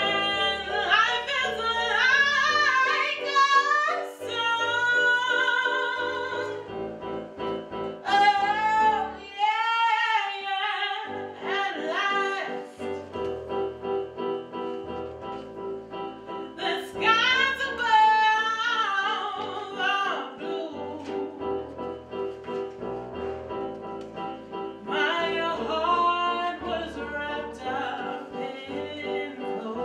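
A woman singing solo into a microphone with heavy vibrato, in phrases of a few seconds, over held instrumental accompaniment chords that carry on between the phrases.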